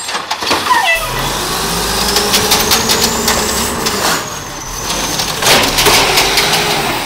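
Mack LE garbage truck engine, fitted with a new turbo, revving up to drive the Amrep automated side arm as it lifts a trash cart, with a high whine that climbs and then falls with the revs. Knocks and clatter near the end as the cart is tipped over the hopper and emptied.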